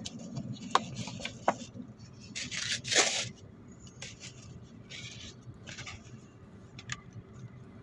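Clear plastic food container being handled: crinkling and rustling in several short bursts with a few sharp clicks, the loudest about three seconds in.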